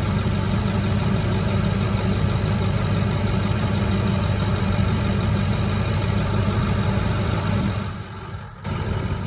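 Ford 6.4 L Power Stroke V8 diesel idling steadily while air is bled out of its fuel system after a weak fuel pump was dealt with. The sound drops away abruptly about eight seconds in.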